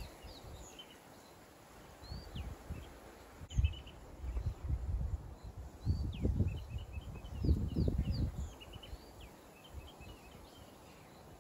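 Wild birds calling in the bush: short downward-sliding whistles and quick clusters of chirps. Intermittent low rumbling noises come and go, loudest around the middle.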